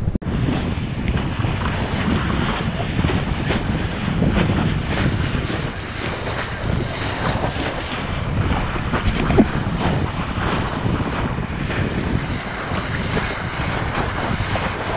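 Wind buffeting a kiteboarder's camera microphone, with water rushing and slapping under the board as it rides across choppy lake water.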